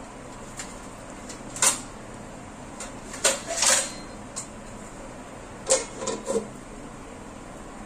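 Sharp knocks and clinks of kitchen utensils. About six seconds in, a cluster of short clanks as a steel lid is set down onto a frying pan.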